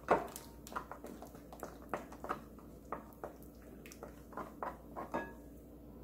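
Wooden spoon stirring a thin gochujang pancake batter in a glass bowl, knocking lightly against the bowl several times a second.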